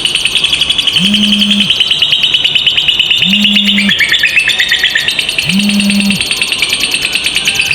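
Lovebird singing a long, unbroken ngekek: a fast, high rattling chatter that dips in pitch about four seconds in. A short low tone repeats under it about every two seconds.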